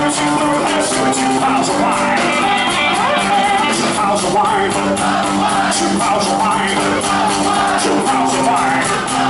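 Live band playing a loud up-tempo country-blues song: electric guitar and drums keeping a steady beat, with a man singing lead.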